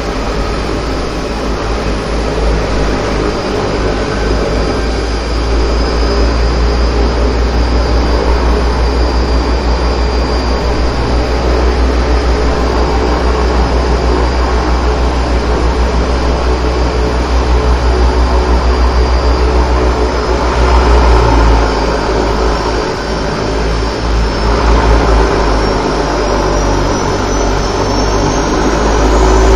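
DHC-6 Twin Otter's Pratt & Whitney PT6A turboprop engines running loud and steady, heard inside the cockpit during engine start-up. A thin high whine rises gradually over roughly the last third.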